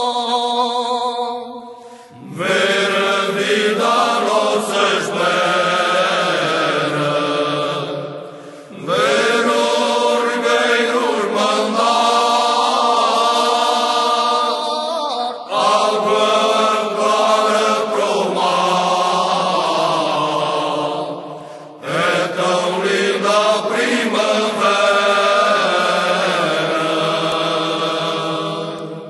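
Cante alentejano: a choir singing unaccompanied in long, slow, held phrases, each about six or seven seconds, with short breaks between them.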